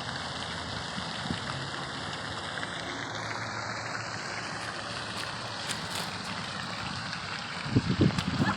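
Steady rush of falling water from a waterfall, with gusts of wind buffeting the microphone near the end.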